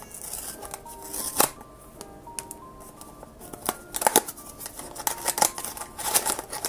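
A small cardboard blind box being torn open at the top and the packing inside handled, giving several separate tearing and crinkling noises over soft background music.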